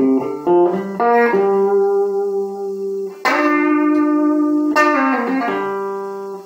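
Hollow-body electric guitar playing a blues phrase without vocals: a quick run of single notes, then chords struck about a second in, around three seconds and near five seconds, each left ringing and dying away, with a short slide down in pitch near the end.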